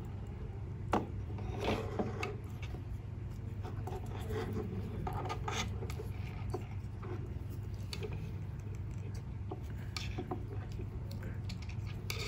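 Fingers handling a small plastic relay module and its wires: light rubbing and scraping with scattered small clicks, a sharper click about a second in, over a low steady hum.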